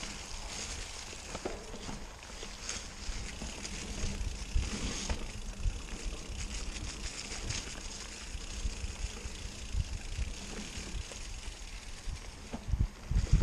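Mountain bike riding over a leaf-covered dirt singletrack: tyres rolling and the bike rattling over bumps, with scattered clicks, wind rumbling on the microphone, and a few heavier thumps near the end.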